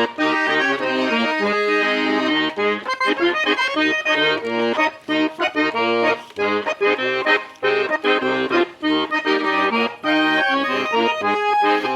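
Accordion (gaita) playing an instrumental passage: a quick melody over a bouncing bass-and-chord accompaniment.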